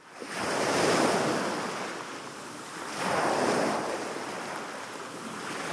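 Sea waves breaking and washing up a pebble beach. The sound fades in at the start, with two surges, one about a second in and another about three seconds in.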